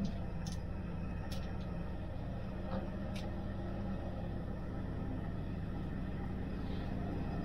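Steady low rumble of an ICE high-speed train carriage at speed, heard from inside the cabin, with a few faint clicks.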